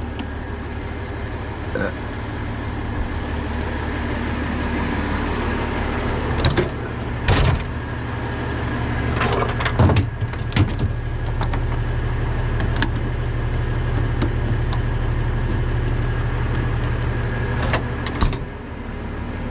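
Truck engine idling steadily, with a handful of sharp metallic knocks and clanks from tow chains and gear being handled and stowed.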